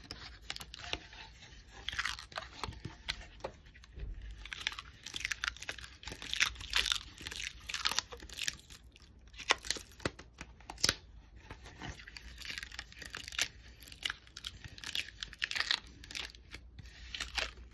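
Dried liquid latex being peeled off a styrofoam mannequin head: irregular crackling and short tearing sounds as the latex pulls away from the foam, with bits of styrofoam coming away stuck to it.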